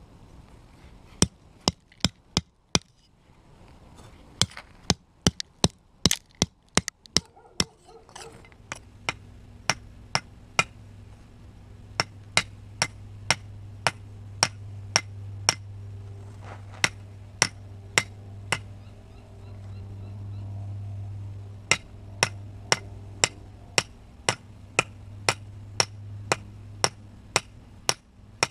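Steel spine of a Dawson Raider 5 knife hacking repeatedly at a concrete block: sharp clacking strikes, about two a second.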